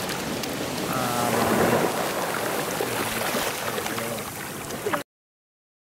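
Sea surf washing up a sandy beach, a steady rush of waves; it cuts off suddenly about five seconds in.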